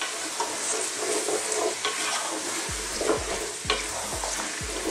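Diced potatoes, carrots and celery sizzling in hot oil in a pot while a wooden spoon stirs them, with a few scrapes and knocks of the spoon against the pot.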